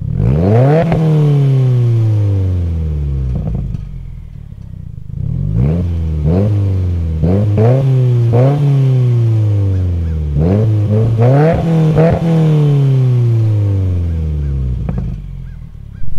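Subaru WRX turbocharged 2.0-litre flat-four free-revving through a Tomei catback exhaust. One hard rev toward 6000 rpm falls slowly back, then comes a run of quick throttle blips and a last slow fall to idle. A few light pops and crackles sound from the exhaust as the revs drop.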